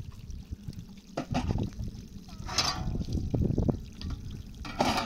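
Water pouring and trickling as dishes are washed by hand, with several short knocks and clatters of dishes against each other and the basin.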